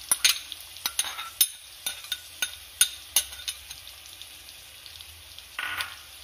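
Sliced shallots and garlic frying in hot coconut oil in a kadai, the garlic just added. A steady sizzle with frequent sharp crackles and pops for the first few seconds, thinning out after that, and a brief louder rustle near the end.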